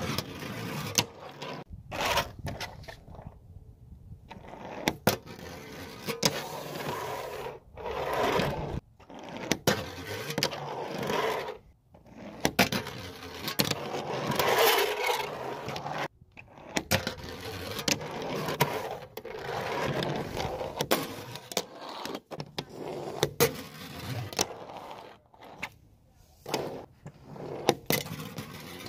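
Fingerboard tricks: the small urethane wheels rolling with a gritty hiss, sharp clacks as the board pops and lands, and scraping grinds along a metal ledge, in repeated runs of a second or two.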